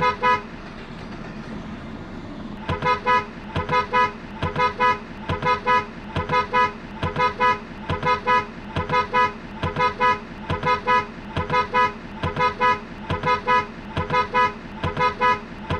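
Background noise, then from about three seconds in a repeating pattern of short horn-like beeps: pairs of quick pitched toots, a pair just under every second, very regular.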